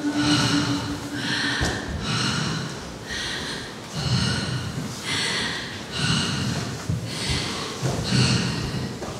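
Performers breathing hard and rhythmically, one loud, forceful breath about every second.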